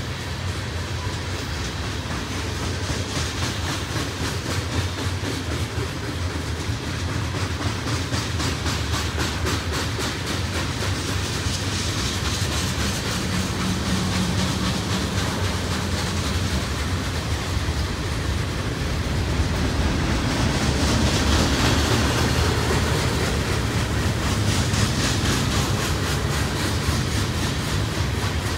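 Freight cars of a long mixed manifest train rolling past: a steady rumble of steel wheels on rail with repeated clicking over the rail joints, growing a little louder about two-thirds of the way through.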